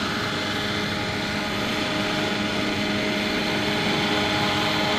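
Radio-controlled AS-350 Ecureuil scale model helicopter running steadily with a whine of several held tones over rotor noise, growing a little louder as it hovers low over the grass coming in to land.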